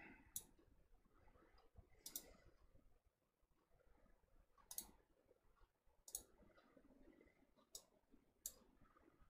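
Computer mouse button clicks, about six short sharp clicks spaced irregularly, over near-silent room tone.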